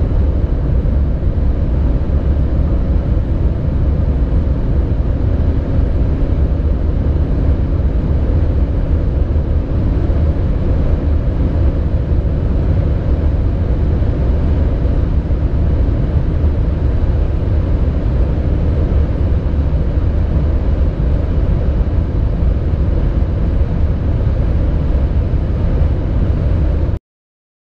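Cabin sound of a BMW 5 Series (G30/G31) 3.0-litre straight-six diesel accelerating hard in seventh gear at around 215 to 254 km/h. It is a loud, steady engine drone mixed with heavy wind and road noise, and it cuts off abruptly near the end.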